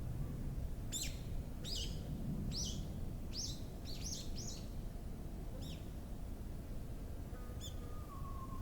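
A songbird giving a series of quick, high chirps, about eight in four seconds, each sweeping down in pitch. Near the end a fainter, longer whistled note slides slightly down. A steady low background rumble runs underneath.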